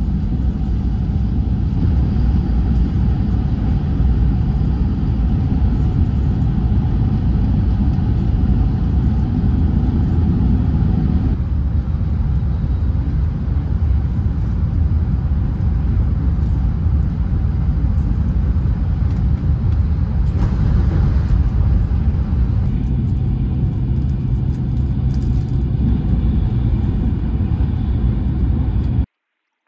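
Cabin noise of a Tohoku Shinkansen Hayabusa bullet train running at speed: a steady, loud rumble and rush from wheels, track and air. The sound shifts slightly at about 11 s and 23 s and cuts off suddenly near the end.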